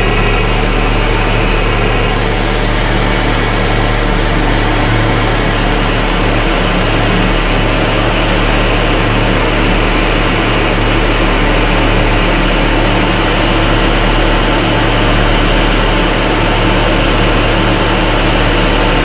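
Harsh noise from a no-input Eurorack modular synthesizer patch built around Clouds: an ErrorTron sequenced by a Buchla array and fed into a Beads granular processor tuned down to cut some of the screeching. A loud, unbroken wall of noise across the whole range, with a steady low hum beneath it.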